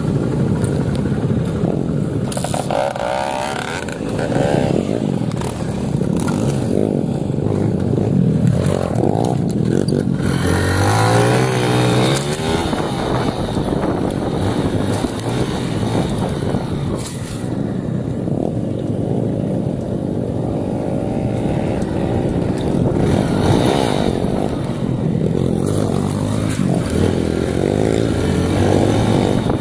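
Dirt bike engine running under way on a rough trail, its revs rising and falling with the throttle, with a clear climb in revs about ten seconds in.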